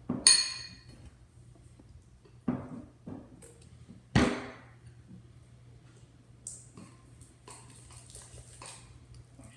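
Utensil and bowl sounds while slime is being mixed: a sharp ringing clink just after the start, a couple of knocks about two and a half and four seconds in, then faint scraping and rustling, over a steady low hum.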